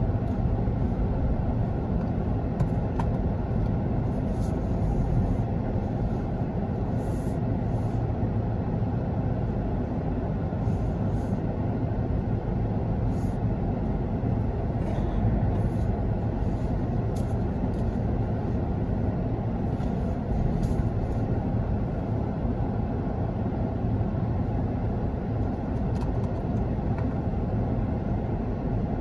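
Steady low rumble inside a car's cabin as it creeps along in heavy traffic: engine and road noise, with a few faint ticks.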